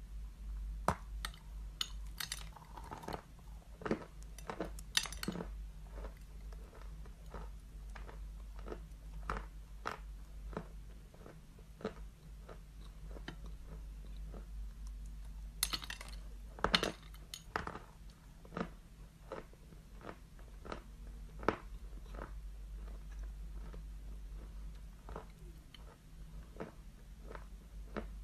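Piece of chalk being bitten and chewed close to the mouth: sharp, crisp crunches, bunched a couple of seconds in and again just past the middle, with smaller crackling chews between. A steady low hum runs underneath.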